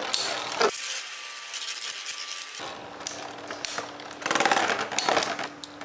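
Two metal Beyblade spinning tops, Lightning L-Drago 100HF and Meteo L-Drago LW105LF, grinding and rattling against each other and the stadium, with sharp clacks of collisions and a louder clash about four seconds in.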